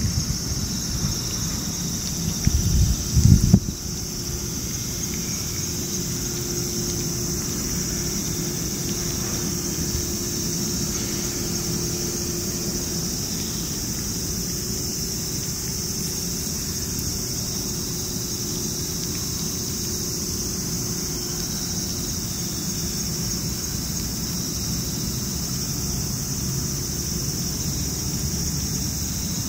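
Insects buzzing in a steady high-pitched drone over a low rumble, with a short loud rumble about three seconds in.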